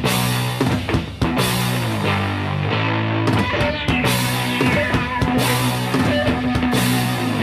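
Rock music with drums and guitar: a steady drum beat under a sequence of held guitar notes.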